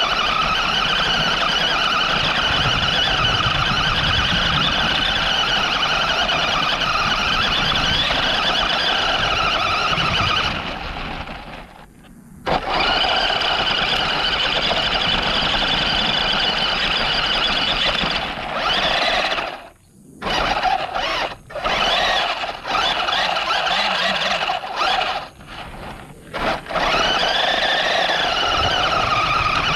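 RC car's motor and drivetrain whining steadily under power, the pitch wavering slightly. It cuts out briefly about twelve seconds in, then cuts in and out several times in the second half.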